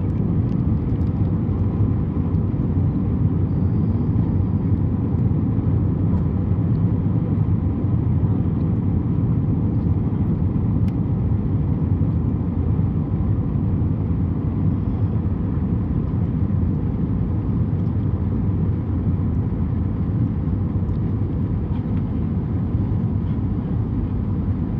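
Steady low rumble inside an airliner's cabin as it taxis after landing, engines running.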